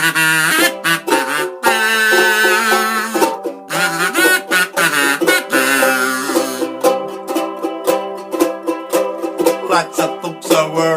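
Kazoo playing the song's melody over a strummed ukulele. The kazoo drops out after about five seconds, and from about seven seconds in the ukulele strums alone in a quick, even rhythm.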